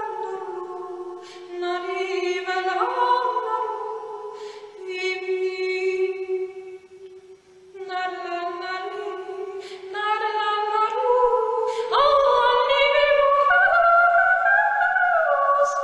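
Slow vocal music: long held sung notes in phrases, with a brief pause about seven seconds in. From about twelve seconds a low steady note joins under the voices.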